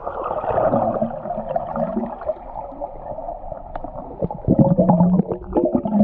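Waterfall water splashing and gurgling close to the microphone, sounding muffled, with a brief low pitched sound about four and a half seconds in.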